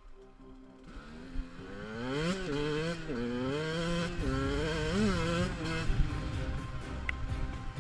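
ATV engine revving: it comes up about a second and a half in, then rises and falls in pitch several times before settling.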